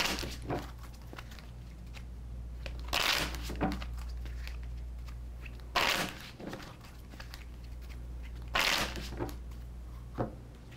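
Tarot cards being shuffled by hand: four short rustling bursts about three seconds apart, with a few light clicks, over a steady low hum.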